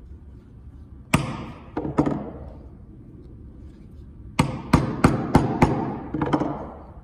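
Corner chisel being struck to square the corners of a routed inlay recess in a white oak door: sharp blows with a short ring, a pair about a second in, then a quicker run of five and one more near the end.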